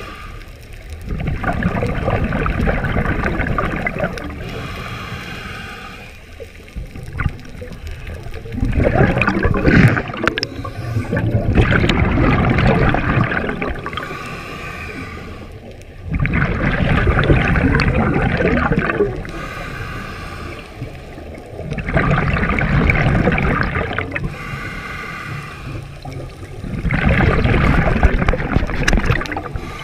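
A scuba diver breathing through a regulator underwater. A hissing inhale with a faint whistling tone alternates with a loud rush of exhaled bubbles, about one breath every five to six seconds.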